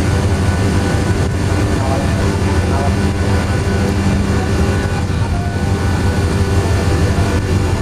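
Ship's engine running with a steady low hum, with indistinct voices under it.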